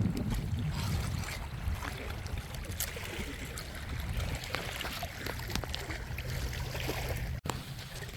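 Water splashing and lapping over a steady low rumble, with scattered small splashes and a brief cut-out in the sound about seven seconds in.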